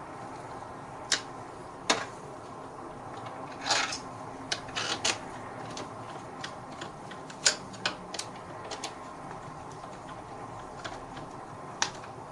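Irregular sharp clicks and taps, a dozen or so, as a screwdriver tightens the mounting screws of a uPVC window handle: the metal tool knocking on the screw heads and the plastic handle.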